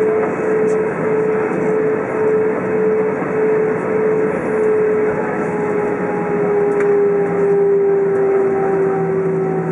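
Airbus A320 cabin noise from a seat over the wing as the airliner moves along the ground: steady engine and airflow noise with a prominent whine that slowly falls in pitch.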